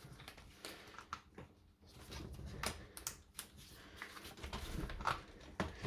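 Small parts of a cordless SDS rotary hammer being handled and prised out of its opened casing: soft handling noise with a few irregular sharp clicks and taps.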